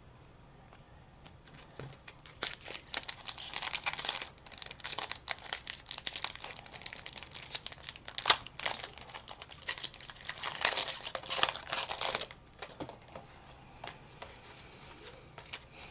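Foil wrapper of a Pokémon Fusion Strike booster pack being torn open and crinkled in the hands. It is a dense run of crackling from about two and a half seconds in until about twelve seconds, with one sharper, louder crackle near the middle.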